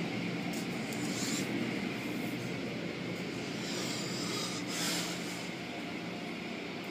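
Automatic tunnel car wash heard from inside the car: water spraying against the windows over the steady hum of the wash machinery. The spray hisses louder about a second in and again around four to five seconds in.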